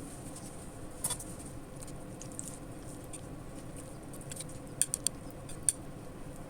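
Potatoes and chicken frying in a pan, with a light steady sizzle and scattered small sharp pops: one about a second in, a quick cluster around five seconds and another just before six.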